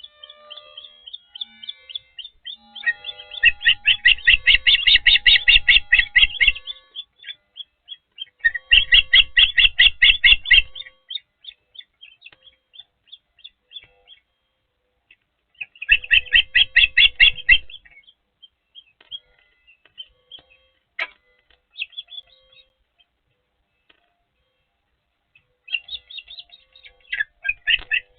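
Ospreys calling at the nest: four bursts of rapid, high, whistled chirps, each lasting about two seconds, with scattered single chirps in between.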